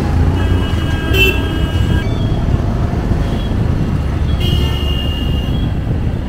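Road and traffic noise from a moving motorbike: a steady low rumble of engine and wind. Twice, a high steady tone sounds over it for a second or so, once about half a second in and again past four seconds.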